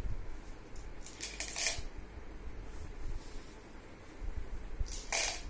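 Dry lentils rustling and rattling as a hand picks them up and drops them into a clear plastic mug of water. The sound comes in short spells, a little over a second in and again, louder, near the end.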